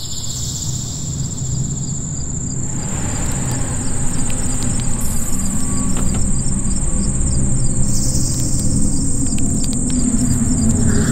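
Night ambience of crickets chirping, a steady high trill with regular pulses, over a low rumble that grows louder over the first few seconds.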